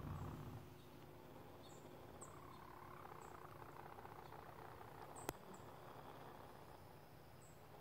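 Chickens making a faint, low, wavering trill while standing frozen, with brief high chirps scattered through it and one sharp click about five seconds in.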